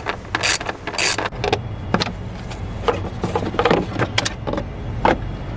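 A ratchet wrench with a 10 mm socket clicks in two short strokes, about half a second apart, as it loosens engine cover nuts. After about a second come a few scattered knocks and clunks over a low steady hum.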